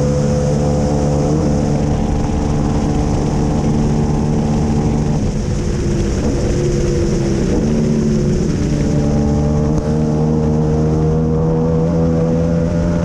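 KTM 890 parallel-twin engine of a racing sidecar outfit running hard at speed, heard onboard with air rushing past the camera. The engine note dips about five seconds in and climbs back up about nine seconds in.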